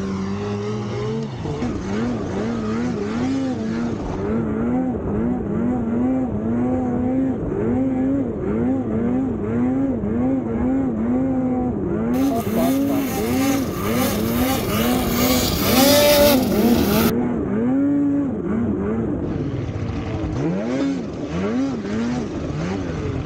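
Two-stroke mountain snowmobile engine revving up and down in quick throttle pulses, about two a second, while pushing through deep powder. A hiss rides over it for a few seconds midway.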